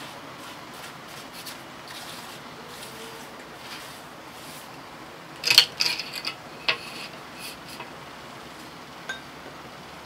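Hand tools worked against a brick wall: a metal straightedge and paintbrush rubbing and tapping on the bricks while white lines are painted along the mortar joints. A short cluster of sharp clicks comes about five and a half seconds in, with single clicks later.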